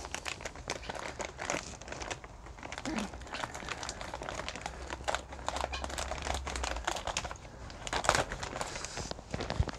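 Plastic bag of diatomaceous earth crinkling as it is handled and snipped open with scissors: a steady run of small, irregular crackles.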